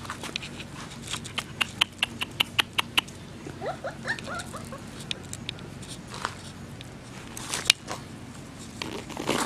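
Five-week-old Bernese mountain dog puppies playing, their paws and claws pattering and clicking irregularly on paving stones, with a brief run of high squeaky yips about four seconds in.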